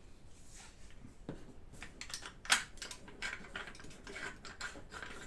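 Small clicks, taps and rattles of airsoft rifle parts being handled and set down, with one sharp click about two and a half seconds in.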